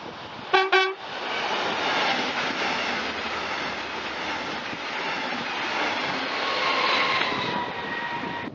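Electric metronom double-deck push-pull train sounding two short horn toots, then passing close at speed with a loud rush of wheel and rail noise. Near the end a high whine falls slightly in pitch as the rear of the train goes by.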